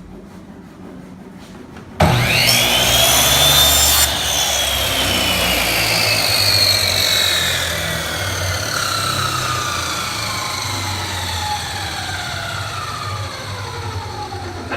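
Electric power saw switched on about two seconds in, its whine rising quickly as it spins up. It cuts through wood for about two seconds, then coasts down with a slowly falling whine.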